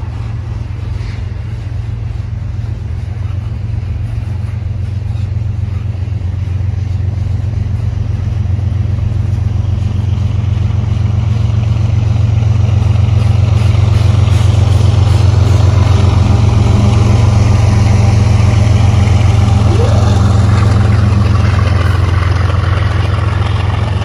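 BNSF grain train rolling past: steady wheel-on-rail rumble of covered hopper cars under the low, steady drone of a diesel locomotive engine. It grows louder through the first half, peaks in the middle and eases slightly near the end.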